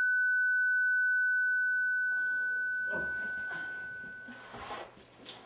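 A single high-pitched steady ringing tone, the ear-ringing effect that follows a flashbang going off. About a second and a half in it starts to fade away, gone by near the end, while muffled thumps and scuffling come up underneath.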